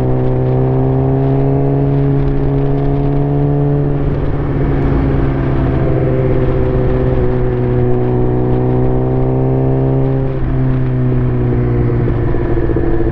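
A Suzuki GSX-R 600 inline-four running through an aftermarket exhaust on the move. The engine note climbs slowly under throttle, breaks off about four seconds in, climbs again, then drops sharply about ten seconds in, as at a gear change. Wind rumbles on the microphone throughout.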